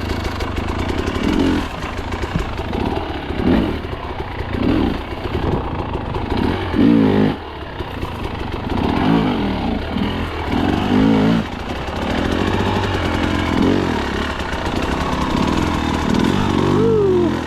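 Two-stroke KTM enduro dirt bike engine revving up and down in repeated throttle bursts, about one every second or two, as it is ridden under load.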